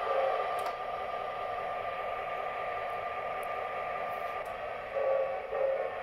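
MTH Railking B&O E-8 model diesel locomotive's onboard sound system playing a steady diesel engine rumble through its small speaker, with two short louder notes near the end.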